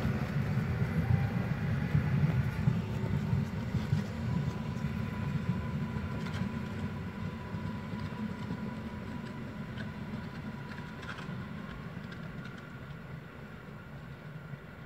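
EN57 FPS Feniks electric multiple unit pulling away and accelerating: wheels rumbling on the rails with a rising electric whine, fading steadily as the train moves off, with a few faint clicks.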